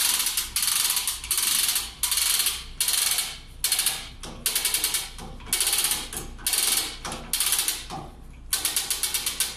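Manual chain hoist being hauled by its hand chain to lift a car. The chain rattles and the pawl clicks in repeated pulls, each a quick burst of ratcheting clicks, about one and a half pulls a second.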